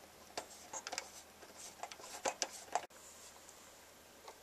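A string of faint, irregular clicks and ticks from the plastic speaker binding posts on an AV receiver's back panel being spun open by fingers, dying away after about three seconds.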